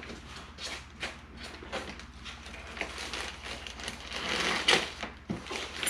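Packaging being handled during unboxing: irregular rustling and crinkling with scattered light knocks, busiest about four to five seconds in, over a steady low hum.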